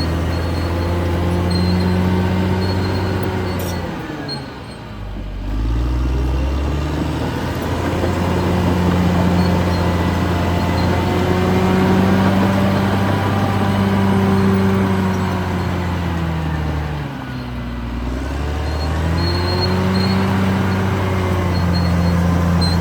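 Caterpillar D6R XL crawler bulldozer's diesel engine running at working revs. Twice, about four seconds in and again about seventeen seconds in, the engine speed drops sharply and then climbs back up.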